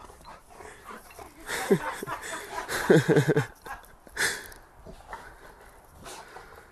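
A dog making short whining, whimpering cries, with a cluster of them about three seconds in.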